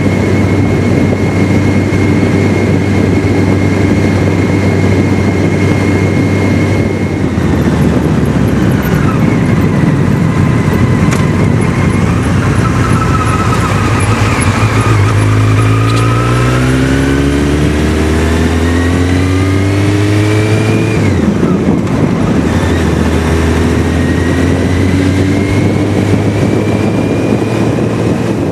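Motorcycle engine running at speed under a rush of wind noise. About halfway through, the engine note climbs steadily as the bike accelerates, falls abruptly at a gear change, then climbs again.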